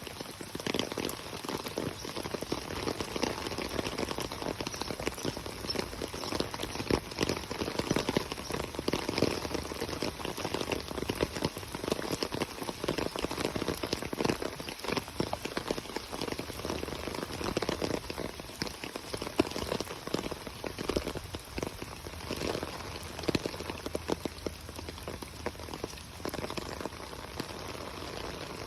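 Steady rain, a dense crackle of many drops striking close by.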